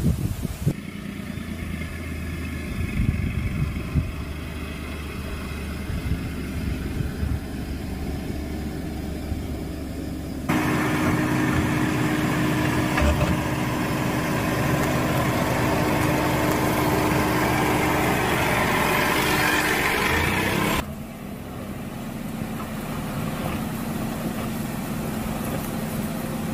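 Dacia Duster SUV's engine running at low speed as it crawls over rough off-road ground, a steady hum. The sound cuts abruptly between takes about ten seconds in and again about twenty seconds in, and the middle take is louder.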